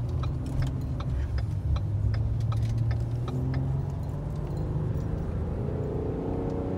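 Car engine and road noise heard from inside the cabin as the car gets under way: a steady low hum whose overtones rise slightly in pitch in the second half as it picks up speed. Scattered light clicks run through it.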